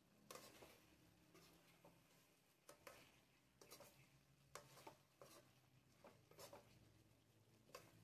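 A slotted metal spoon scraping and knocking against a metal wok while stirring chicken and boiled eggs in sauce. The sound is faint, with short, irregular scrapes and clinks a few times a second.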